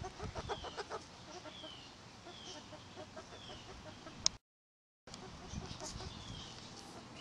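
Backyard chickens clucking softly while foraging, over a row of short, high, falling peeps about once a second. A sharp click comes a little after four seconds in, and the sound drops out for under a second.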